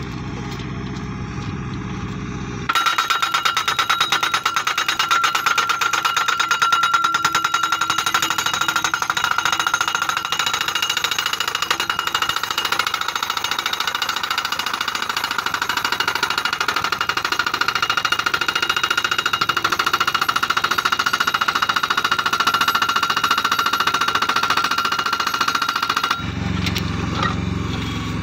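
GAYK post-ramming machine driving a steel crash-barrier post into the ground. Its engine is running, then about three seconds in the hydraulic hammer starts pounding the post in a fast, even clatter with a steady metallic ring. It keeps going for over twenty seconds and stops suddenly near the end, leaving the engine running.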